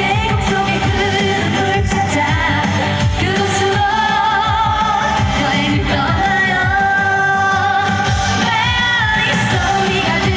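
Korean trot song with singing over a steady beat, the melody held in long notes with wavering vibrato.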